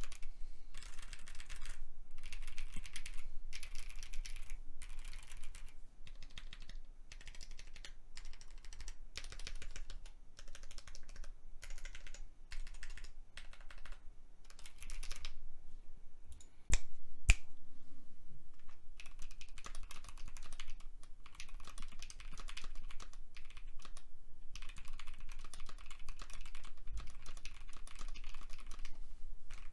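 Typing on a mechanical keyboard fitted with Mint switches (68 g springs, teal polycarbonate housings): runs of key clacks in bursts with short pauses. Two sharper, louder knocks come a little past the middle.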